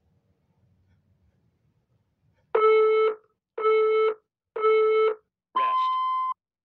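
Interval timer countdown: three short, buzzy beeps about a second apart, then one longer, higher-pitched beep. It signals the switch between work and rest intervals of a tabata workout.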